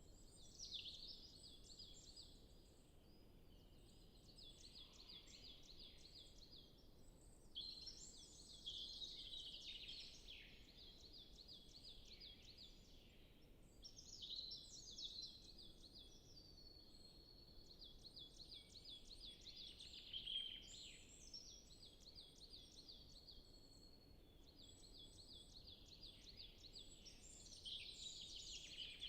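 Several forest songbirds singing, fairly faint. Runs of evenly repeated high notes come back every few seconds, with more varied, louder song phrases in between.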